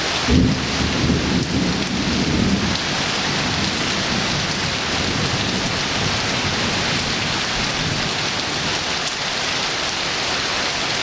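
Heavy rain falling steadily in a summer thunderstorm. A low rumble of thunder starts sharply just after the beginning and fades away over the first two or three seconds.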